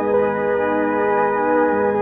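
Background film score of sustained keyboard chords with an organ-like tone, held steadily, with the notes shifting twice.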